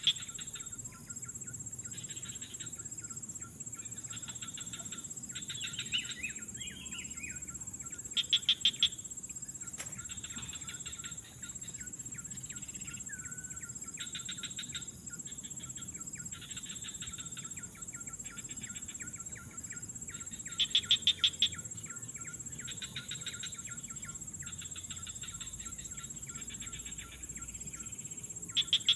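Wildlife sounds: insects keep up a steady high buzz while birds chirp, and short, rapid trills break in every few seconds, two of them louder than the rest.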